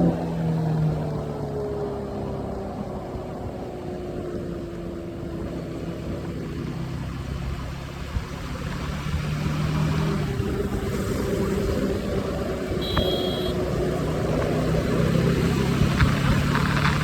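Triumph Scrambler 400X's single-cylinder engine at highway speed: the revs fall over the first few seconds, hold low, then climb steadily again through the rest, over a constant rush of noise. A brief high beep sounds about thirteen seconds in.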